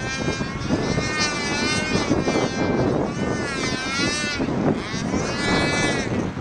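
Pulse-jet engine of a control-line speed model airplane running while held on the ground, a continuous buzz whose pitch wavers slowly up and down.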